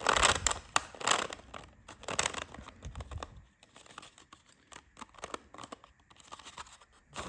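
Thin 3D-printed plastic strips being twisted and worked against each other by hand, rustling and crinkling with quick clicks. The handling is busiest in the first few seconds, then turns to softer, scattered clicks.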